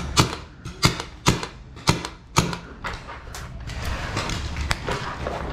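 Paintball markers firing during a game: about eight sharp, irregular pops, most of them bunched in the first two and a half seconds, then sparser.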